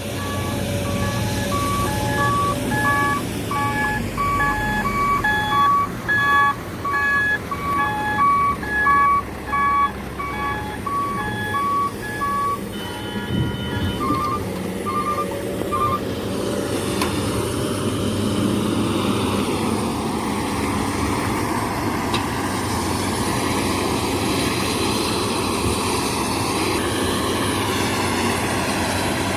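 Vehicle reversing alarm beeping steadily, a little under two beeps a second, over running diesel engines. About halfway through the beeping stops and a brief, faster beeping follows. After that only the diesel engine noise continues.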